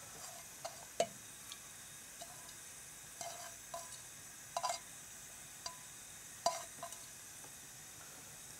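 Grated carrot being tipped from a bowl into an oiled nonstick frying pan and spread by hand: scattered light taps and clinks of the bowl and hand against the pan, over a faint steady hiss.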